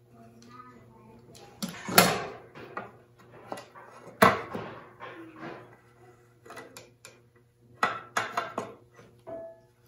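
Scattered metallic clicks and clanks as a bar clamp is loosened and a metal speed square is taken off the frame's corner on a wooden workbench. The sharpest knocks come about two and four seconds in, with a quick run of clicks near the end.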